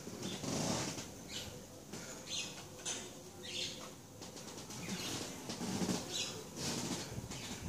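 Soft, irregular rustling: short brushes of noise about once a second.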